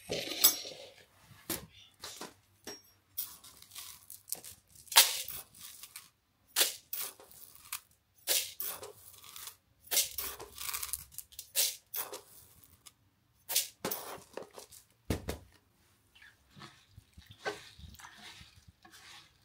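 Irregular rustling and crinkling with a few light clicks and knocks, as of things being handled and unwrapped by hand.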